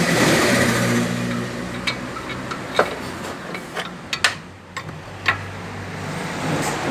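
Chevrolet Prisma 1.0 engine running with a steady hum, and a series of sharp irregular knocks in the middle. The knocks fit the front-suspension clunk of a stabilizer link with play.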